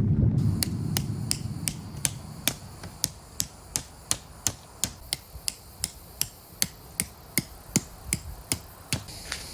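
Regular light clicking, about three clicks a second, as low wind rumble fades away.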